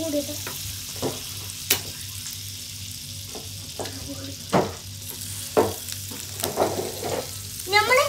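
A pat of butter sizzling steadily as it melts in a hot frying pan, with a few sharp taps and knocks against the pan over the sizzle.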